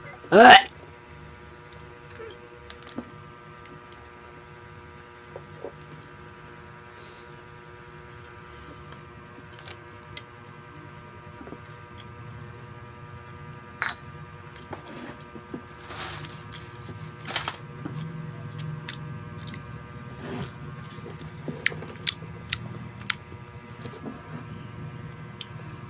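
A steady electrical hum, with scattered soft clicks and smacks of eating and handling food. About half a second in there is one brief, very loud sound that rises sharply in pitch, as a finger is pushed into the mouth.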